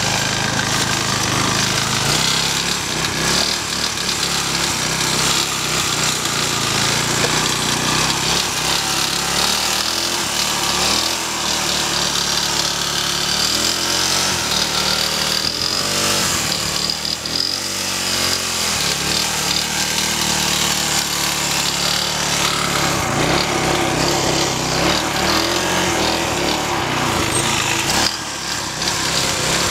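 Small lawn mower engine on a walk-behind mower converted into a ride-on go-kart, running hard as it is driven along, its pitch wavering up and down around the middle as the speed changes.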